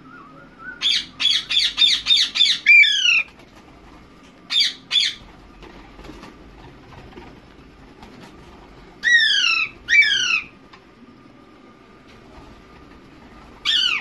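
Indian ringneck parakeets screeching: a quick run of about seven harsh calls in the first three seconds, two more around five seconds in, two downward-sliding screeches around ten seconds in, and a last one near the end.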